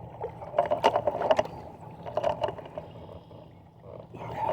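Boat motor running with a steady low hum, with a few clusters of knocks and rattles from handling on the boat about a second in and again past two seconds.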